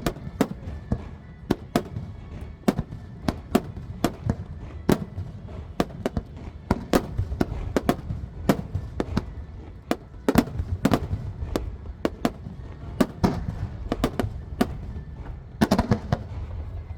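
Aerial fireworks shells bursting in quick, irregular succession, several sharp bangs a second over a continuous low rumble, with a tight cluster of loud bangs near the end.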